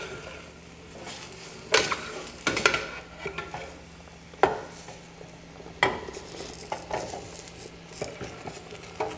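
A metal spoon and a glass bowl clinking and scraping against a stainless steel stockpot as diced zucchini goes in and is stirred: about half a dozen sharp knocks spread out, over a faint sizzle of vegetables cooking in olive oil.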